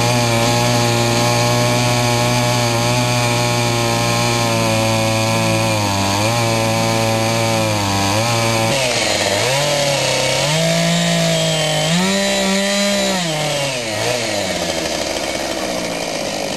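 Large Husqvarna chainsaw on a Westford chainsaw mill ripping lengthwise through a hardwood log, its engine running loud and flat out under load. The engine note holds steady for the first half, then rises and falls several times in the second half.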